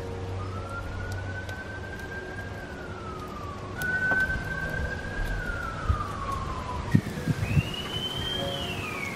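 An emergency-vehicle siren wailing, one tone sweeping slowly up and down in cycles of about three seconds, pitched higher in the last couple of seconds.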